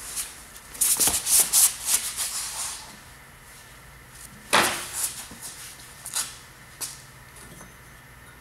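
Rustling and clicking as a grease gun and its hose are pulled off a snowmobile's rear-suspension grease fitting and handled, with one sharp knock about four and a half seconds in and a few lighter clicks after it.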